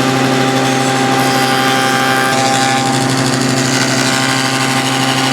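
Table saw with a dado blade set to 3/8 inch running steadily, a constant hum over a hiss.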